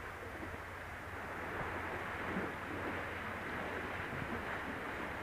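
Wind on the microphone over sea washing against rocks: a steady rushing noise that grows a little louder after about two seconds.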